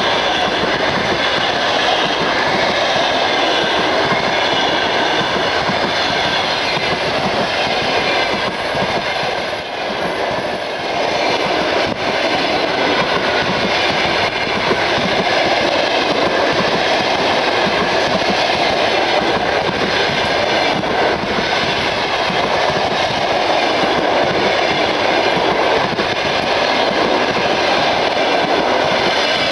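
Train of passenger coaches passing close by at speed: loud, steady noise of the wheels running on the rails.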